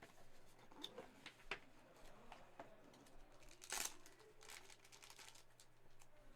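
Faint crinkling of card wrappers and light clicks of trading cards being handled, with a slightly louder rustle about four seconds in.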